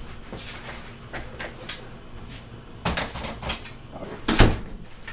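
Clicks and knocks of an interior door being handled, with the loudest thump about four and a half seconds in.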